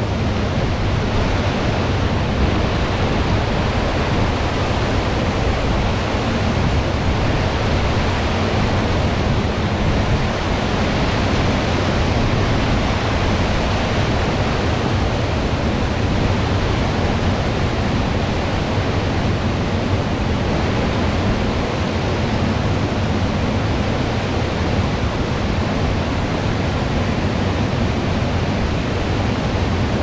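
Mountain stream rushing steadily over rocks through white-water rapids, an even, unbroken roar of water.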